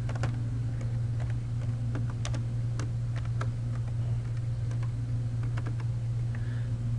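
Typing on a computer keyboard: a run of irregular keystroke clicks as a place name is typed, over a steady low hum.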